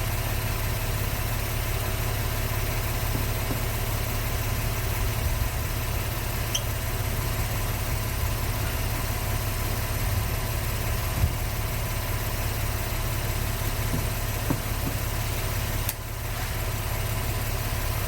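Vehicle engine idling steadily, a low even rumble, with a brief dip in level near the end.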